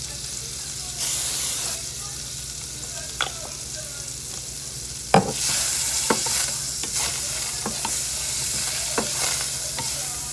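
Butter sizzling in a frying pan, with a spatula scraping and knocking against the pan. The sizzle swells about five seconds in, where the loudest knock lands, and scattered knocks follow.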